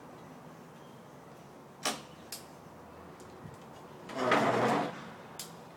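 Handling noises around a dirt bike whose engine is not yet running: a few sharp clicks and knocks, and a louder brief rustling scrape about four seconds in.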